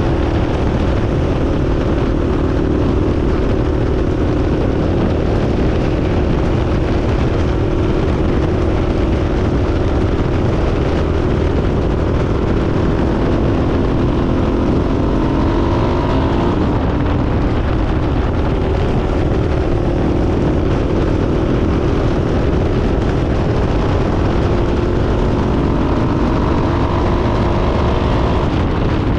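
Yamaha Raptor 660R's single-cylinder four-stroke engine running steadily while the quad is ridden, the engine note rising and falling a little about halfway through and again near the end, with wind noise on the microphone.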